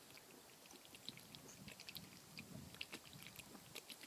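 Faint gulping and swallowing from a man drinking from a large can of malt liquor: soft, irregular little clicks and swallows over near silence.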